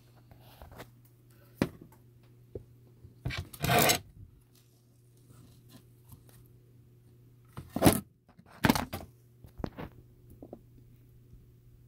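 Handling noises: a few sharp knocks and a short scraping rustle, the loudest two knocks coming close together about eight seconds in, over a steady low hum.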